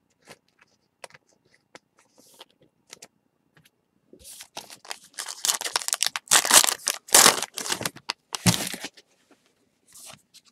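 Wrapper of a baseball card pack being torn open and crinkled: a run of loud rips and crackles from about four to nine seconds in. Before it come a few faint clicks and taps of handling.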